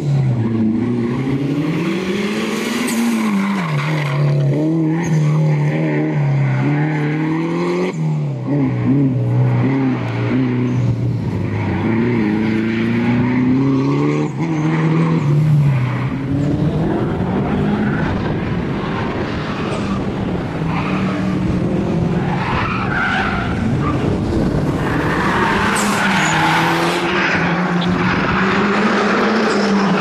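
Mitsubishi Lancer Evo V rally car's turbocharged four-cylinder engine driven hard, revving up and dropping back again and again through gear changes, with tyres squealing and skidding in the corners. It grows fainter around the middle and the tyre squeal is strongest near the end.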